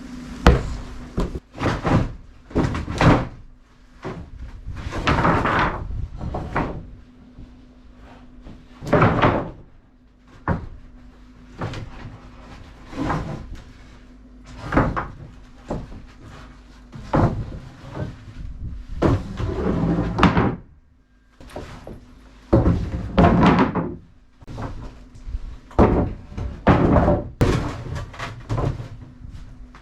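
Wooden 2x6 boards being handled and sorted: a string of irregular knocks, clunks and short sliding scrapes as lumber is picked up, shifted and set down against other boards.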